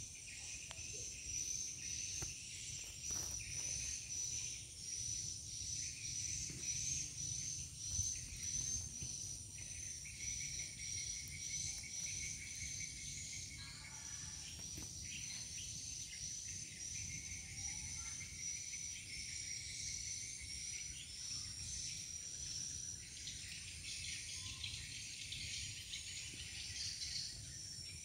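Insects chirping: a steady high-pitched drone with a rhythmic high chirp repeating about twice a second, over a faint low rumble.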